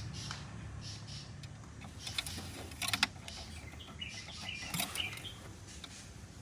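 Quiet outdoor ambience with a low steady hum, a few sharp clicks about two to three seconds in, and birds chirping about four to five seconds in.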